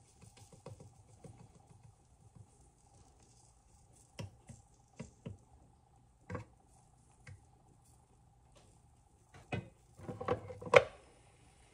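A fork tapping and scraping against a Dash mini dog-treat maker's nonstick mold as batter is worked into it: scattered light clicks and taps, building to a louder clatter with one sharp clack near the end.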